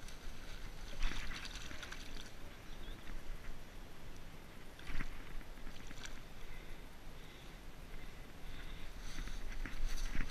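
Water splashing in a few short bursts as a trout moves in a landing net held in the shallows: about a second in, twice around the middle, and again near the end.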